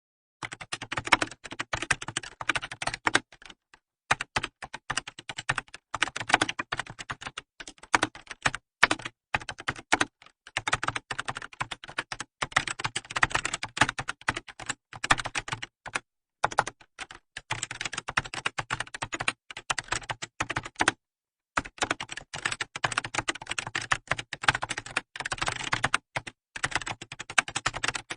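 Typing on a computer keyboard: rapid runs of key clicks in bursts of a few seconds, with short pauses between them.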